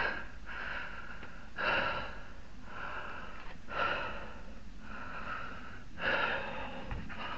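A man breathing heavily, about six loud breaths in and out, winded from the physical effort of the job.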